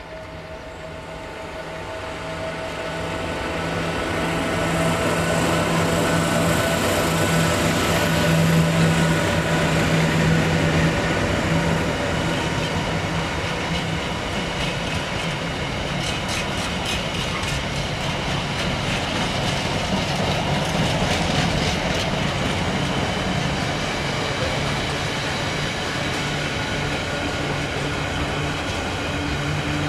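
Freight train passing: the locomotive's steady low hum grows louder over the first few seconds as it draws near, then the wagons roll by with regular clicks of wheels over rail joints.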